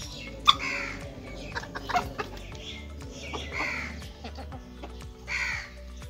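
Harsh, falling bird calls, about four spread through, over quiet music with a steady low tone. A sharp click about half a second in is the loudest sound.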